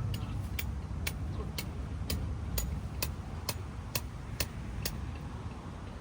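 About eleven sharp clicks at a very even two a second, stopping about five seconds in, over a steady low rumble.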